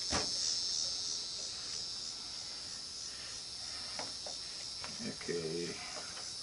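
Steady high-pitched chirring of an insect chorus, with a few light clicks.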